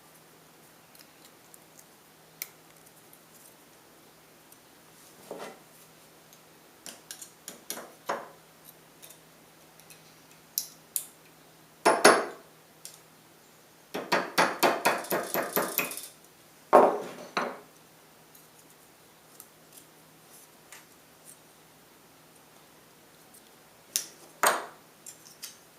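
Thin tin-can sheet metal being worked by hand with pliers and tin snips: scattered clicks and short metallic scrapes. About halfway there is a quick run of sharp clicks lasting a couple of seconds.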